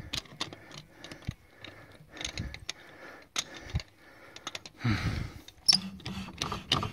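L-shaped steel wheel brace turning wheel bolts into an alloy wheel hub by hand, with irregular metallic clicks and rattles of the socket on the bolt heads. The loudest clicks come about five to six seconds in.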